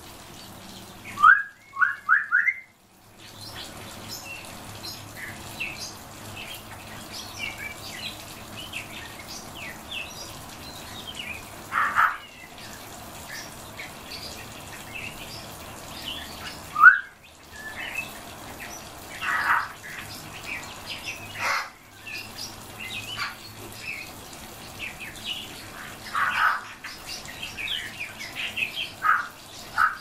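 Caged songbirds chirping and twittering, many short high notes throughout. Louder rising calls come in a quick run of about four near the start, then singly every few seconds.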